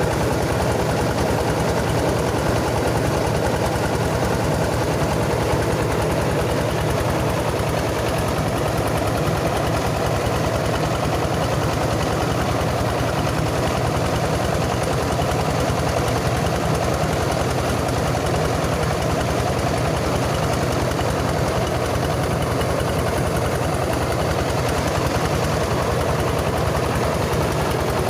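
Mobile rice milling machine driven by a Yanmar diesel engine, running steadily with a fast, even chug.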